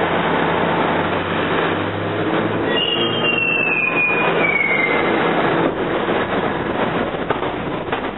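R68 subway train running on steel rails, a dense rumble with a high steel-wheel squeal that glides downward for about two seconds in the middle.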